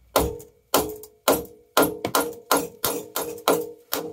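A hammer striking a cast-iron marine exhaust riser over and over, about two blows a second, each blow ringing briefly at the same pitch. The riser's four bolts are out and it is being knocked loose from the exhaust manifold.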